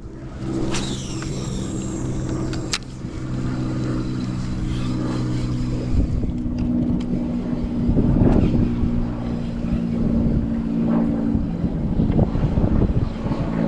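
A motor running with a steady low hum; its pitch shifts slightly about six seconds in. A short falling high sweep sounds about a second in, and a sharp click near three seconds.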